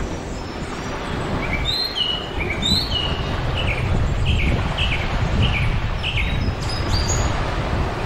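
Steady wash of waves and wind on a beach, with a bird chirping a run of short, high repeated notes from about a second and a half in until near the end.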